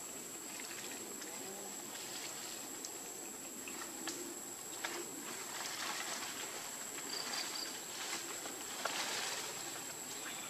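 Quiet outdoor forest ambience: a steady high-pitched whine over a soft hiss, with scattered faint ticks and rustles.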